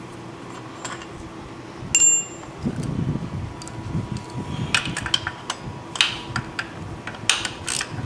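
Hand tools on a starter motor's mounting bolt: a single sharp ringing metal clink about two seconds in, then irregular ratchet-like clicking that thickens near the end as the bolt is backed out. The bolt is really loose.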